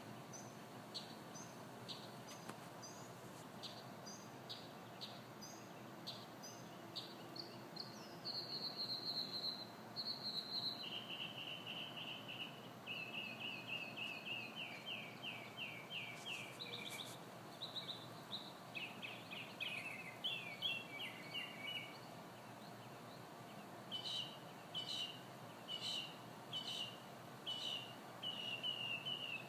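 A songbird singing a varied series of phrases over steady background noise: scattered short chirps, then fast trills, then a string of evenly repeated notes near the end.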